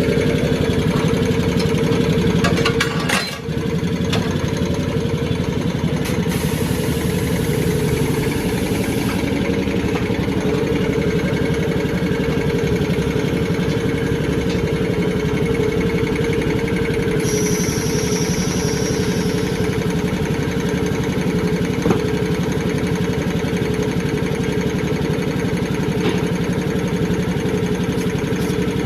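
An engine idling steadily, a constant hum that dips briefly about three seconds in.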